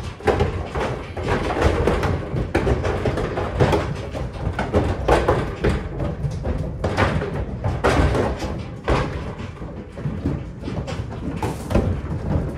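Cattle hooves clattering and thudding on a livestock trailer's metal floor as the animals walk off, with irregular knocks against the trailer walls.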